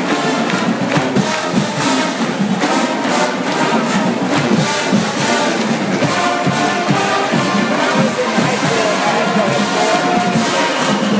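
College marching band playing a loud brass tune, with sousaphones and drums, in the open air.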